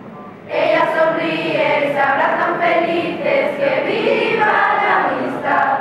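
A group of teenage students, mostly girls, singing a Christmas carol (villancico) together as a choir, coming in after a short pause about half a second in.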